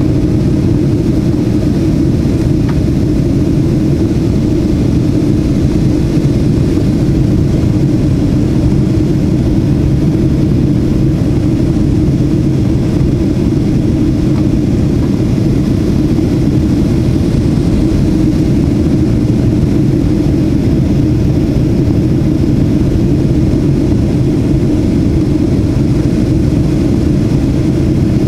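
Steady low drone inside the cabin of a Boeing 737-800 on approach: its CFM56-7B turbofan engines and the airflow over the fuselage, unchanging throughout.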